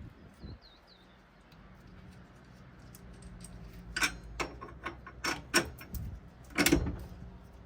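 Metal tools and suspension parts being handled: a handful of sharp clinks and knocks in the second half, the loudest near the end.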